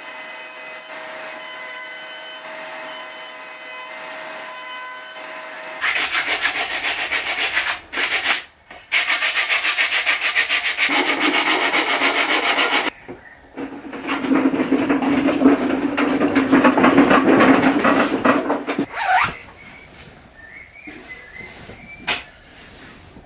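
Wood being sanded by hand with a sanding block: steady rubbing strokes that start about six seconds in, pause briefly twice, and stop a few seconds before the end.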